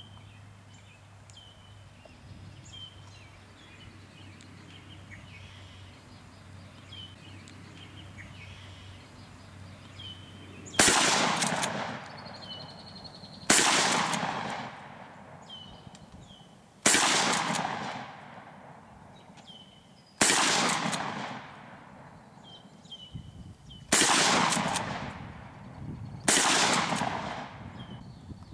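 Six shots from a Mossberg 500 12-gauge pump shotgun firing 2 3/4-inch slugs, starting about eleven seconds in and coming roughly every three seconds, each dying away over a second or two. Birds chirp in the quiet stretch before the first shot and between shots.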